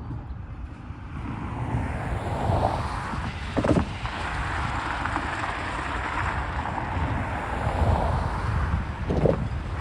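Intermodal stack train rolling past, a steady rumble of steel wheels on rail with wind on the microphone. Brief louder clunks come twice, a few seconds in and near the end.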